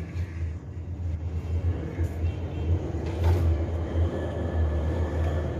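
Wind buffeting the phone's microphone: a low, uneven rumble that swells and dips, over faint town background noise.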